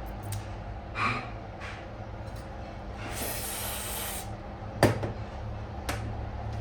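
Hand work on the engine over a steady low hum: a few clicks, a hiss lasting about a second starting about three seconds in, and a sharp knock near the end.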